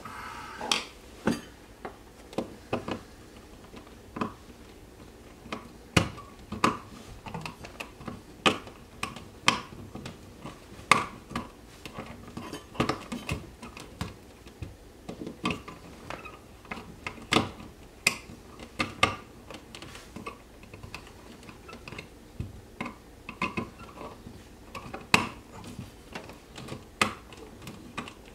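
Irregular sharp clicks and knocks of a plastic old-work electrical box being handled and worked into a drywall cutout, to seat it snug in the wall.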